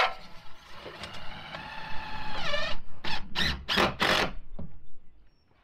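Power tool fastening an OSB wall sheathing panel: a steady whine that drops in pitch near its end, then four sharp, loud hits in quick succession.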